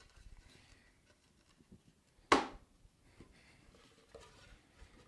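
Light handling of plywood pieces while a half-inch plywood piece is test-fitted into a freshly cut dado, with one sharp wooden knock about two seconds in.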